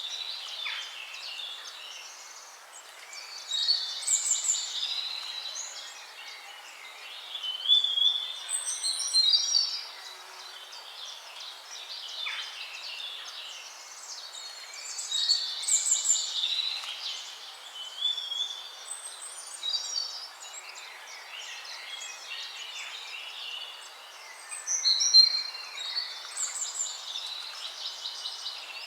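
Songbirds singing: loud bursts of chirps and trills come every few seconds, louder around 4, 8, 16 and 25 seconds in, over a steady background hiss.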